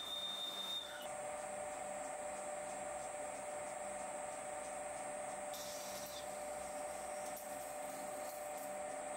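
Colchester lathe running while a 25.4 mm (1-inch) blacksmith drill in the tailstock chuck drills into the spinning metal bar, making a steady machine whine. About a second in, a higher tone drops out and a lower, steadier whine takes over.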